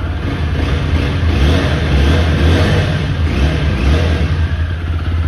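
TVS Apache RTR 160 4V's single-cylinder four-valve engine running through its standard-edition stock exhaust, held at idle and revved up and back down a few times.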